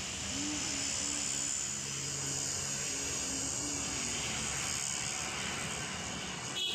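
Street ambience dominated by the steady drone of motor traffic, with a faint low engine hum and a high hiss, and a brief knock near the end.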